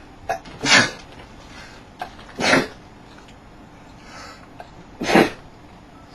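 A man sneezing three times in a row, about two and a half seconds apart. Each sneeze is sharp and short, with a brief catch of breath just before it.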